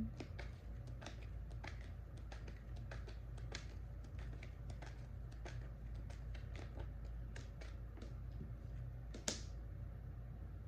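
Light, irregular clicking and tapping, a few clicks a second, with one sharper click about nine seconds in, over a steady low hum.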